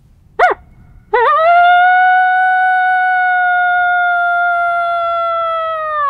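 Coyote howler mouth call blown by hand, imitating a coyote. It gives one short yelp, then after a brief pause one long howl that rises, holds a steady pitch for about five seconds and falls off at the end.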